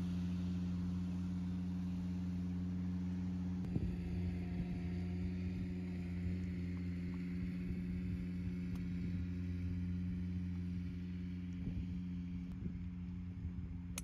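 A steady, low mechanical hum holding one pitch throughout, with a few faint ticks over it.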